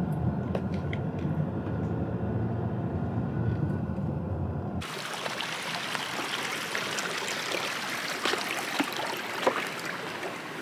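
Low, steady rumble of a car driving, heard from inside the cabin. About five seconds in it cuts to a steady rushing hiss with faint ticks of footsteps on wooden boardwalk planks.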